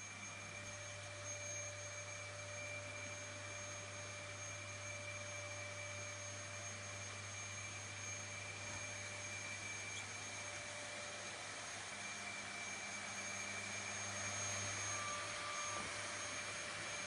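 Dyson Cinetic Big Ball vacuum cleaner running steadily: a constant motor whine of several steady tones over an even hiss and a low hum.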